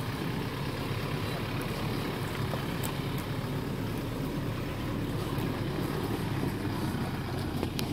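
Toyota Hilux engine running steadily at low revs as the ute crawls over rocks and ruts, with a few sharp clicks from stones under the tyres.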